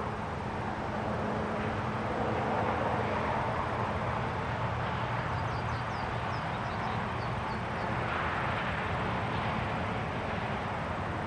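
Countryside ambience: a steady rushing of wind over a low, even hum, with a few short, high bird chirps about five to eight seconds in.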